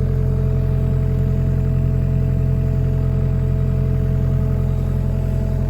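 Mini excavator's diesel engine idling steadily, with a constant low hum and a couple of steady tones above it.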